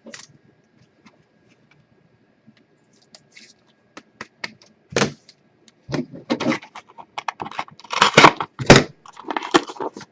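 Trading cards and their packaging being handled on a table: a few faint ticks at first, then clicks and knocks from about halfway in, building into a run of loud knocks and scraping near the end.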